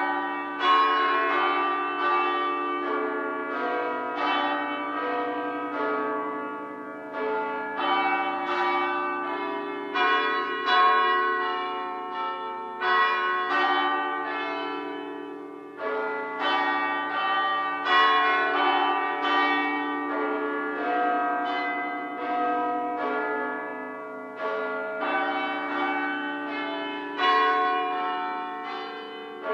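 Church bells ringing a peal: a steady succession of bell strikes, each ringing on and fading under the next.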